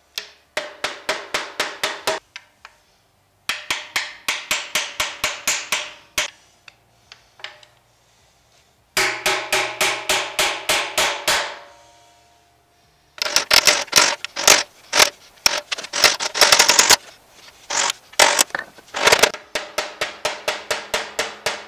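Rubber mallet tapping rapidly on a metal seal driver, about five or six blows a second in runs of two to four seconds with short pauses, each blow ringing with a metallic tone. It is driving a new axle seal into the end of a GM 9.5-inch 14-bolt axle tube.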